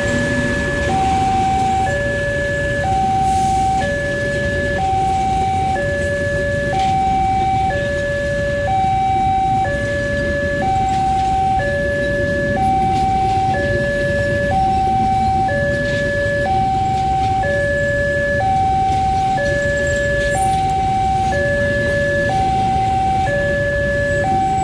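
Railway level-crossing warning alarm sounding two electronic tones that alternate about once a second, a high-low warning that a train is passing. Underneath it, the steady low rumble of passenger coaches rolling past.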